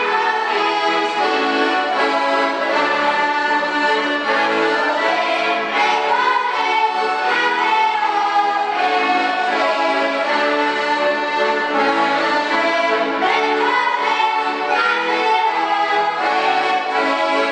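Boys singing a Slovak folk song together into microphones, over instrumental accompaniment.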